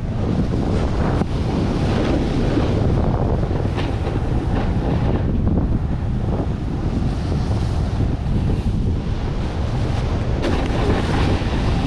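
Wind rushing hard over the camera's microphone while riding down a snow slope, with the hiss and scrape of snow underfoot and a few sharper scrapes on the turns.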